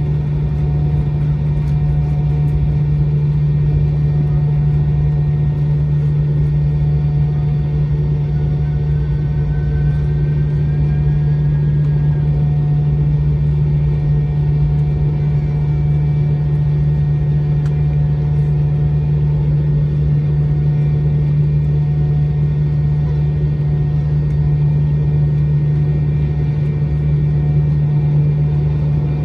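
Steady cabin drone of a McDonnell Douglas MD-90 taxiing, heard from inside the cabin: its tail-mounted IAE V2500 turbofans run at low taxi power as an even hum over a low rumble.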